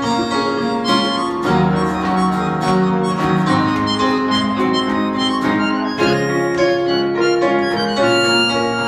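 Live acoustic jazz with accordion and violin playing a tune together, the accordion's sustained reedy chords and melody prominent.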